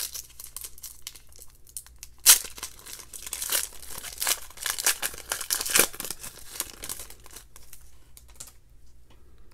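Foil trading-card pack wrapper being torn open and crinkled by hand: a sharp rip a little over two seconds in, then irregular crackling that thins out toward the end.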